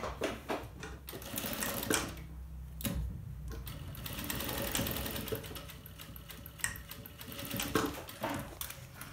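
Domestic electric sewing machine running, stitching a seam through folded cotton fabric.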